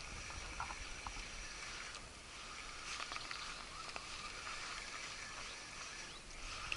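Quiet outdoor ambience: a low wind rumble on the microphone under a faint, steady high hiss, with a few small clicks.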